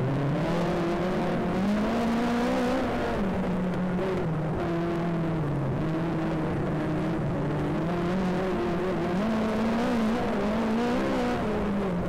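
Speedway race car engine running hard, its pitch rising and falling again and again as the throttle is worked.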